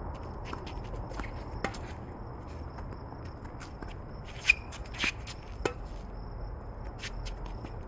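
Tennis balls struck by rackets and bouncing on a hard court, heard as a series of sharp pops, with quieter shoe scuffs between. The loudest pop comes about four and a half seconds in, followed by two more within about a second.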